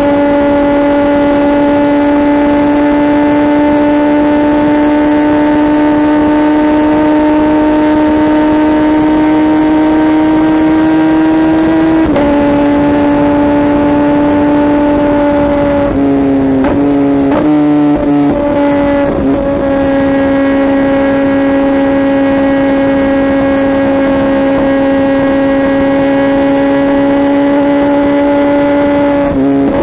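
Kawasaki ZX-10R's inline-four engine running through a Mivv aftermarket exhaust while riding. The engine note rises slowly, then drops with a gear change about twelve seconds in. A run of quick revs and shifts follows in the middle, then a steady cruise, with another quick shift near the end.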